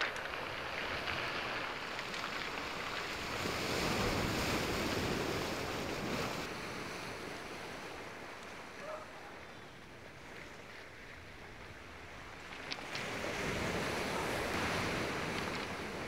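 Sea surf washing in over a rocky, pebbly shore, swelling twice as waves break and then ebbing.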